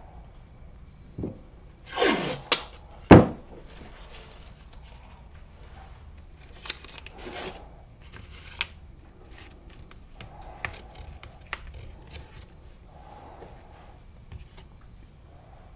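Workbench handling noises: a rustling, scraping burst, then two sharp knocks, the second and louder one about three seconds in, followed by scattered small clicks and rustles.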